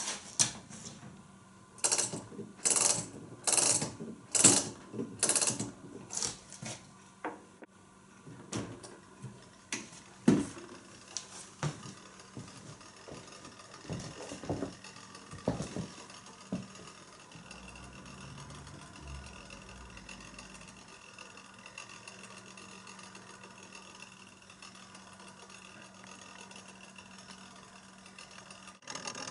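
Clockwork mechanism of a replica c.1800 optical cabinet being set going: a run of loud clicks, about one and a half a second, for the first several seconds, then scattered knocks, then a faint steady whirr as the mechanism runs.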